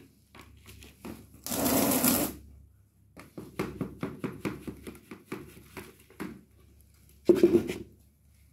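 Potting mix of soil and bamboo leaf poured from a small plastic pot into a larger plastic pot: a gritty rush of falling media about a second and a half in, then a run of quick ticks and rustles as loose mix drops and is pressed in by gloved hands, and another short rustling burst near the end.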